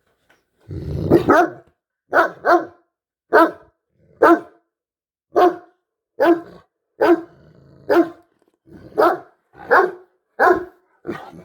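Great Danes barking: a run of about a dozen deep barks, roughly one a second with some coming in quick pairs, the first drawn out over a low rumble.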